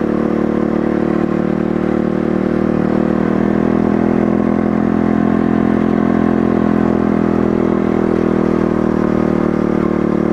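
Pit bike engine running steadily at a constant cruising speed while the bike rides along.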